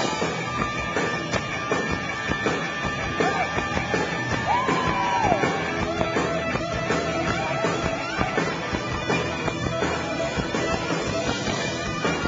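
Live hard rock band in an instrumental stretch: a distorted lead electric guitar on a Flying V plays held notes, bending one up and back down about four and a half seconds in, over drums and bass. The sound is heard from the crowd through a small camcorder's microphone.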